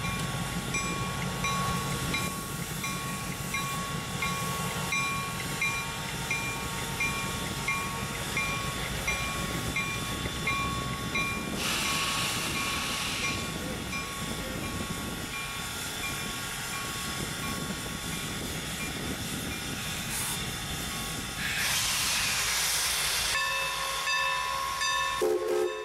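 Norfolk & Western 4-8-0 No. 475 steam locomotive standing still under steam, with a steady mechanical ticking and two bursts of steam hiss partway through.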